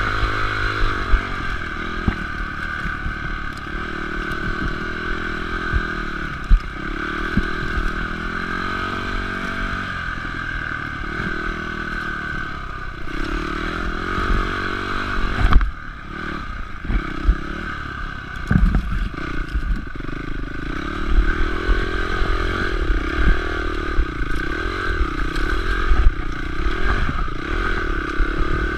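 Honda CRF250X's single-cylinder four-stroke engine pulling at low speed on the trail, its pitch rising and falling with the throttle. Knocks and clatter from the bike bouncing over rough ground, with a brief dip in engine sound about halfway through.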